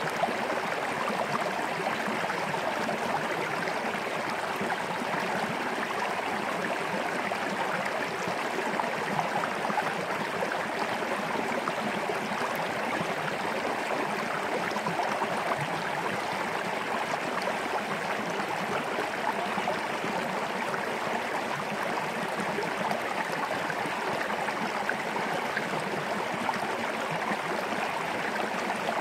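A small stream flowing over rocks: a steady, even rush of water.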